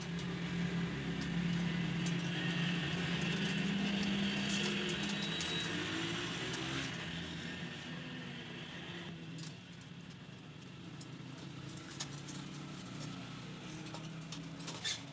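A motor vehicle's engine running steadily. It is louder in the first half and eases off after about nine seconds, with a few faint clicks.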